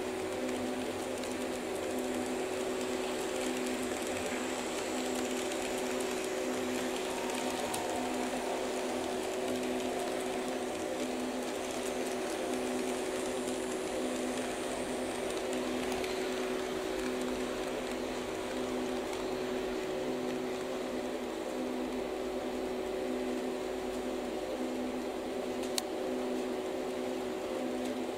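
HO-gauge model train running at a constant speed around the layout: a steady mechanical hum made of a few unchanging tones, with one sharp click near the end.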